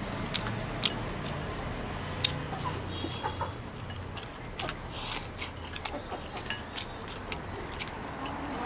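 Wooden chopsticks clicking and scraping against a porcelain rice bowl, with chewing sounds: a string of short sharp clicks, the loudest about two seconds in. Chickens cluck now and then in the background.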